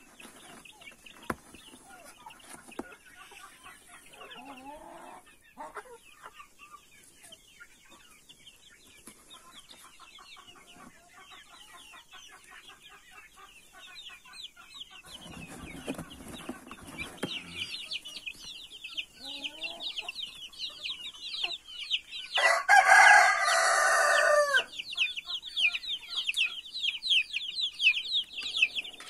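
Month-old chicks peeping, rapid high falling peeps that are faint at first and become loud and continuous about two-thirds of the way in. Just before that there is a muffled rustle, and later one loud call of about two seconds from an adult chicken, the loudest sound.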